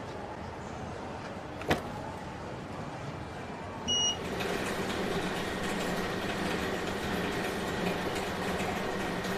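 Airport luggage-wrapping machine: a sharp click, then a short electronic beep about four seconds in, after which its motor starts and runs with a steady hum.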